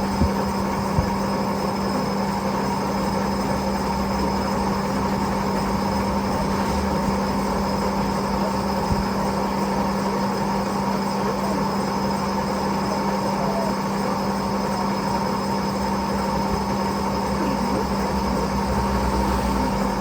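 Metal-turning lathe running with a steady, constant hum, with two light clicks in the first second.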